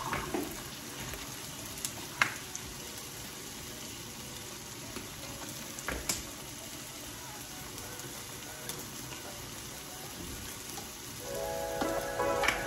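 Vegetables sizzling steadily in a pan on a gas stove, with a few light clicks and knocks of cookware. Background music comes in near the end.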